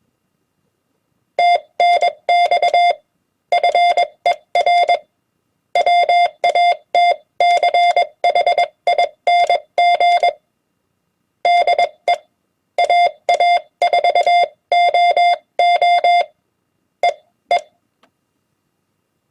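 Morse code (CW) tone sent by hand on a key at 20 words per minute: a single steady beep keyed on and off in dots and dashes. The characters come in groups with short silent gaps between words, ending with a couple of short elements near the end.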